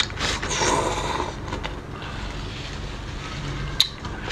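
A person eating close to the microphone makes a breathy slurp through the lips lasting about a second near the start. Softer mouth sounds follow, and a sharp click comes near the end.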